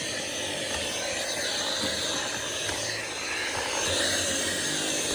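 Dyson V7 Absolute cordless vacuum running steadily: a rush of air with a thin, steady high whine.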